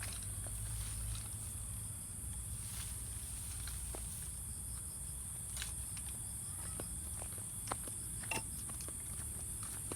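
Scattered soft footsteps and small crackles on the ground, with a couple of sharper clicks near the end, over a steady high-pitched hiss and a low rumble.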